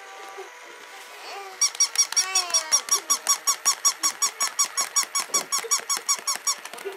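Battery-operated plush toy dog squeaking in rapid, evenly spaced chirps, about six or seven a second, starting about one and a half seconds in.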